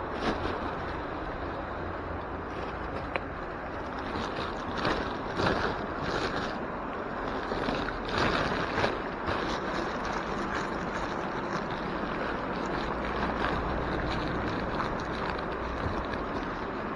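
Wind buffeting the microphone: a steady rushing noise with a low rumble, swelling louder a few times about five and eight seconds in, and one sharp click about three seconds in.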